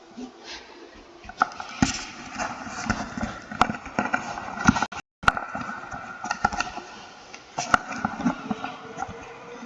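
Computer keyboard being typed on: an irregular run of key clicks and clacks, with a brief complete cut-out of the audio about five seconds in.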